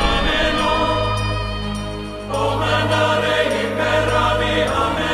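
Background music: a choir singing held chords over a steady low bass, swelling back in after a brief dip about two seconds in.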